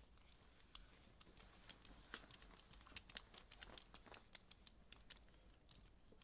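Faint, irregular clicks and taps of small plastic parts and tiny screws being handled during assembly of a robot car kit.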